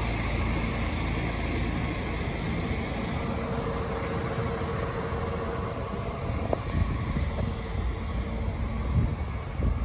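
DAF CF440's PACCAR MX11 six-cylinder diesel idling steadily, its low rumble thinning out after a few seconds. A few dull thumps come in the second half.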